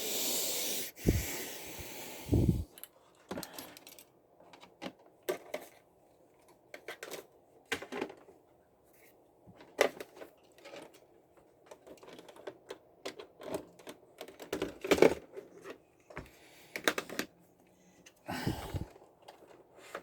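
Irregular taps and clicks of keys being pressed on a ZX Spectrum's rubber keyboard, after a short burst of hiss and two thumps at the start.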